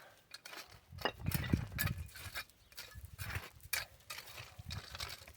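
Stones knocking and clacking against each other as they are handled and set down, in irregular short knocks.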